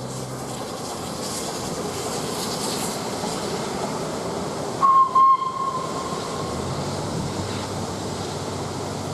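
Steam-hauled train of A1-class 4-6-2 No. 60163 'Tornado' running past, a steady rushing rumble. About five seconds in the locomotive gives a whistle, a single steady note sounded in two short loud blasts that then fade.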